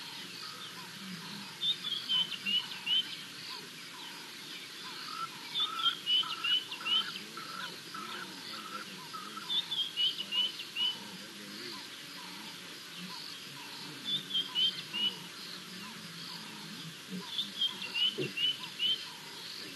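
Wild birds singing outdoors. A phrase of four or five quick high chirps comes back about every four seconds, over a steady run of lower notes repeating about twice a second.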